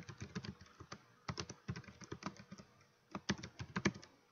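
Typing on a computer keyboard: irregular runs of quick keystrokes, with a short pause about a second in.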